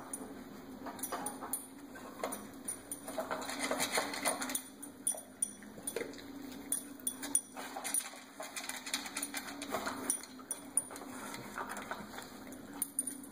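A dog nosing and pushing a layered plastic treat puzzle toy around, making irregular plastic clicks and knocks as the pieces shift.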